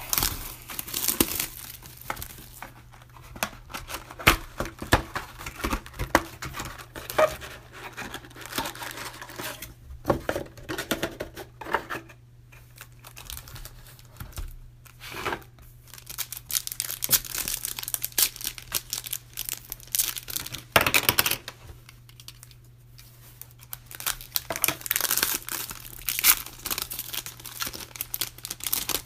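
Packaging of a Panini Prizm trading-card retail box being torn open: irregular ripping and crinkling of wrapping and card-pack wrappers, with sharp crackles, in louder bouts and quieter handling between. A steady low hum runs underneath.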